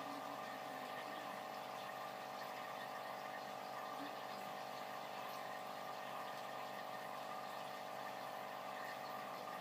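A small pump running steadily, a constant hum of several fixed tones over a faint watery hiss.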